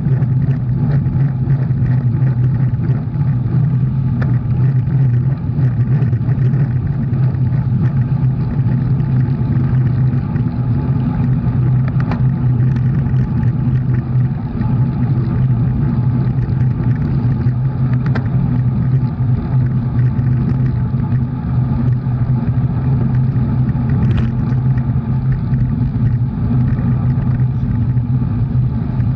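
A motor vehicle running steadily: a constant low engine hum with road rumble and no change in pitch.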